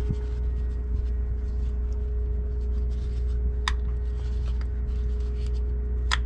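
Small plastic clicks and handling noises as the wiring harness connector and its retaining clip are pressed home on a transfer case shift motor. Two sharper clicks come, one past the middle and one near the end, over a steady low hum.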